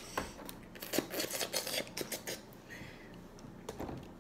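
Thin plastic water bottle being handled, its cap twisted and its walls crinkling in a quick run of sharp clicks and crackles, then set down on the table near the end.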